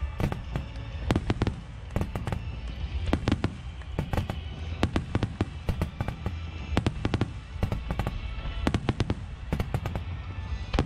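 Fireworks finale: aerial shells bursting in quick, irregular succession, many sharp bangs echoing over a steady low rumble.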